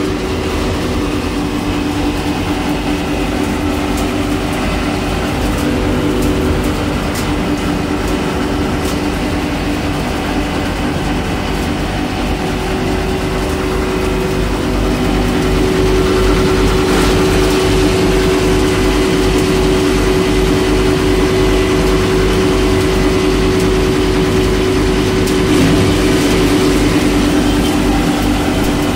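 Copper wire granulator line running: a steady mechanical hum with a fast low throbbing and a couple of held tones, from its motors, blower and vibrating separator table. It grows a little louder about halfway through.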